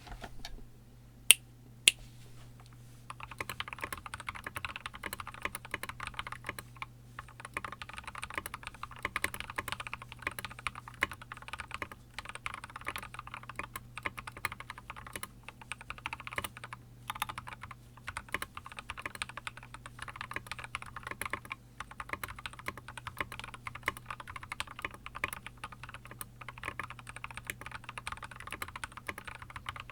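Fast continuous typing on an Epomaker EP84 mechanical keyboard with lubed Gateron Ink Black linear switches, SA profile keycaps and a stock aluminium plate, starting about three seconds in with brief pauses. Two sharp clicks come first and are the loudest sounds, with a low steady hum underneath.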